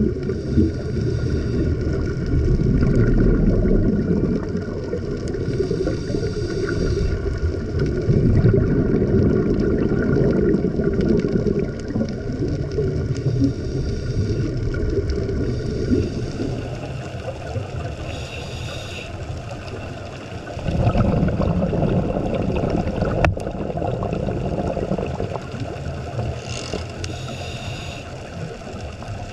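A scuba diver breathing through a regulator, heard underwater on the camera's microphone. There is long rumbling bubble noise, and every few seconds a short hissing breath comes through the regulator.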